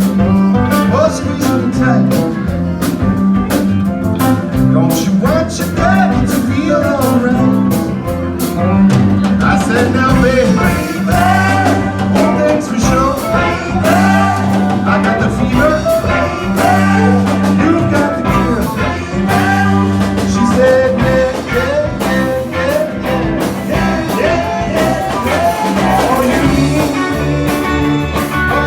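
A band playing an upbeat blues-rock number with drums, bass and guitar, and a lead line of bending notes over a steady bass.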